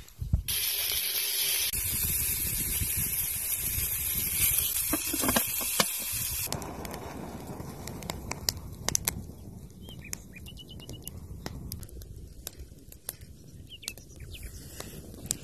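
A loud steady hiss that cuts off about six seconds in, followed by a quieter campfire crackling with scattered sharp snaps.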